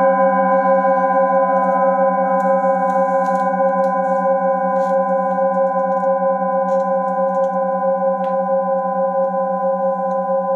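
Singing bowls ringing on after being struck, several overlapping sustained tones with a slow wavering beat, fading gently. A few faint clicks sound over them.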